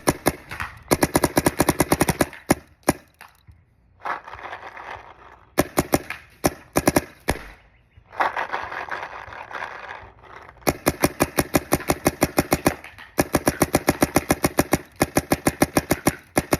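Adrenaline Impulse paintball marker fired rapidly in several strings of sharp pops at about ten shots a second, with scattered single shots between the strings. The rate of fire is held down by the Revy hopper, which can't feed the balls any faster.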